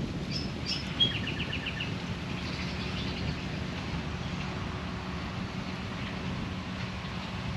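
Birds calling: two sharp high chirps in the first second, then a loud note followed by a quick run of about eight chirps, and a softer run a little later. Beneath them a steady low rumble runs throughout.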